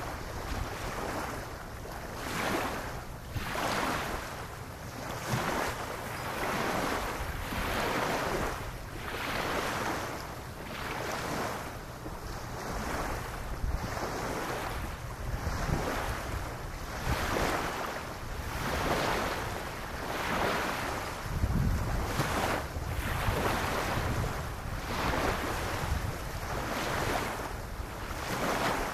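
Small waves lapping on a sandy beach, each one washing up and drawing back about every two seconds. Wind buffets the microphone with a steady low rumble underneath.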